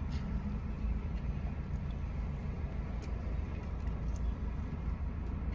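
Steady low rumble inside a car's cabin, with a few faint clicks of a man chewing a mouthful of chili cheeseburger.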